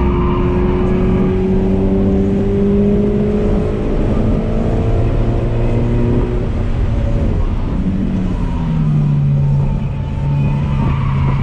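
Toyota 86's 2.0-litre flat-four engine heard from inside the cabin, pulling hard in gear with its note rising slowly for about seven seconds. About eight seconds in the note falls to a lower, steady pitch as the car comes off the throttle for the next corner.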